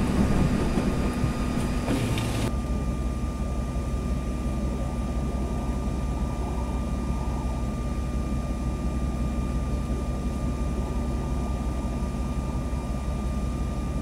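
Strong blizzard wind buffeting the microphone as a steady low rumble with a higher hiss. About two and a half seconds in the hiss drops away suddenly and the low wind rumble continues, with a faint steady whine underneath.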